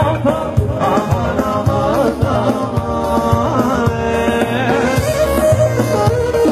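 Live Albanian dance music from a band: a male singer on a microphone over electronic keyboards, with a steady drum beat.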